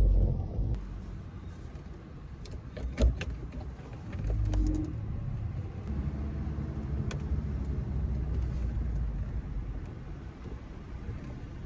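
Ford Grand C-Max pulling away, with steady low engine and drivetrain noise and a short whine about four and a half seconds in. This is the whoop/whine fault the owner hears when moving off.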